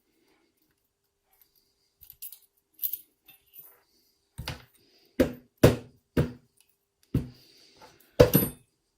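Small metal clicks of lock parts being handled, then a series of six sharp knocks, as of a lock cylinder and tools being knocked against a workbench. The last knocks, near the end, are the loudest.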